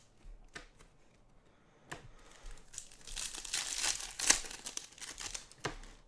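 Foil wrapper of a 2021 Bowman's Best baseball card pack being torn open and crinkled by hand. It starts about two seconds in after a few light clicks, is loudest around the middle, and eases off near the end.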